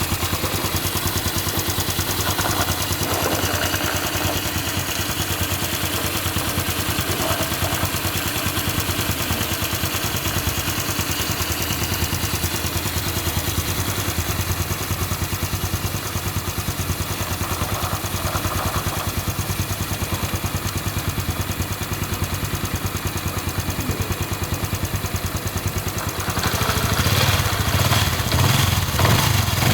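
Honda Wave 110's single-cylinder four-stroke engine running steadily at idle after its rebuild, getting louder near the end.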